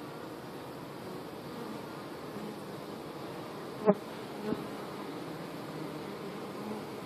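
Honeybee colony buzzing: the steady, dense hum of many bees clustered (bearding) on the front of the hive. A short loud blip comes just under four seconds in, and a smaller one about half a second later.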